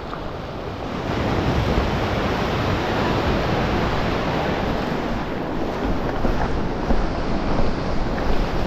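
Sea washing around a rock jetty, with wind buffeting the microphone: a steady, noisy rush that gets louder about a second in.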